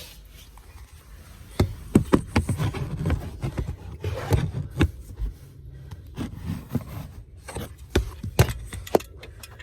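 Irregular knocks, thumps and rubbing of people shifting about and handling things close by, with a run of sharp clicks from about one and a half seconds in until near the end.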